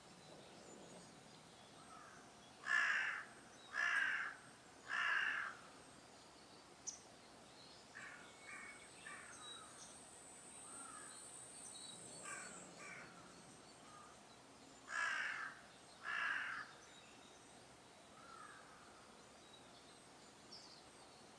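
A crow cawing: three harsh caws in a row a few seconds in, then two more near the end, with fainter, shorter calls in between.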